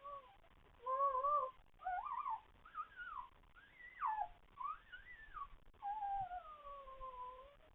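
Newborn Goldador puppies crying: a run of short, high, mewing squeaks that rise and fall in pitch, about six of them, then one long cry that slides down in pitch near the end.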